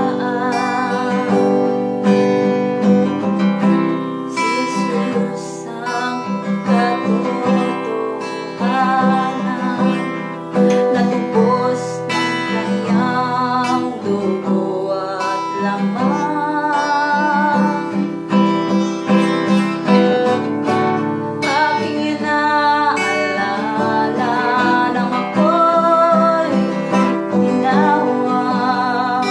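A woman singing a worship song in Tagalog, with held, wavering notes, while strumming chords on an acoustic guitar.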